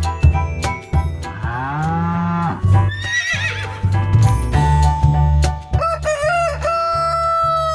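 Upbeat children's background music with a steady beat, overlaid with farm-animal sound effects: a long drawn-out call, a horse whinny about three seconds in, and a rooster crowing near the end.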